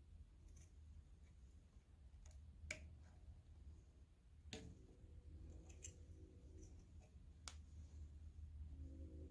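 Near silence with a few faint, sharp clicks and scrapes of fingers picking at the old rubber O-ring around the wet cylinder sleeve inside the cast-iron casting, over a low steady hum.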